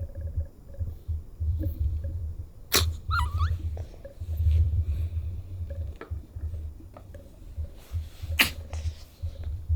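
Selkirk Rex kitten with a cat cold sneezing, sharply about three seconds in and again near the end, with a short wavering squeak just after the first sneeze. A low pulsing rumble runs underneath.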